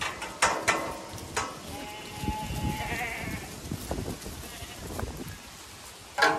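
Zwartbles sheep bleating as the flock runs out: one held call about two seconds in and a short loud one near the end, over a patter of hooves. A few sharp knocks in the first second and a half.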